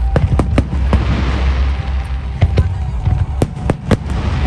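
Aerial firework shells bursting in a rapid, irregular series of sharp bangs over a continuous low rumble.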